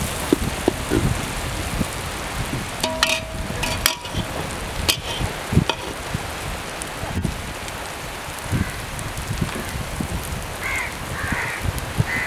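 Metal spoon stirring and scraping an onion-tomato masala in an aluminium pot, knocking against the pot now and then over a steady sizzle. A bird calls a few times near the end.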